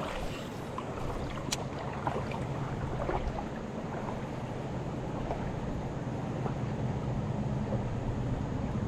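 Steady rush of river current over shoals, with a single sharp click about one and a half seconds in.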